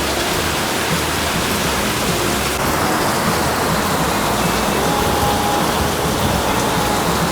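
A loud, steady rushing noise with no rhythm or pitch, cutting in and out abruptly, over faint background music.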